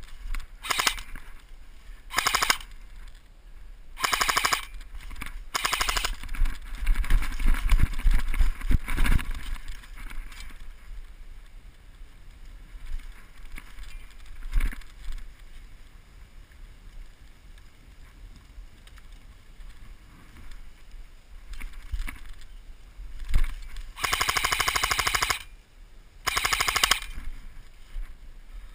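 Airsoft electric rifle firing rapid full-auto bursts: four short bursts in the first six seconds, then a longer burst of over a second and a shorter one near the end. Between them, a few seconds of rustling noise.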